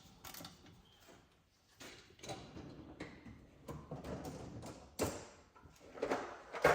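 Scattered clicks and knocks of hand tools and sockets being handled and set down, with a sharper knock about five seconds in and a louder one at the end.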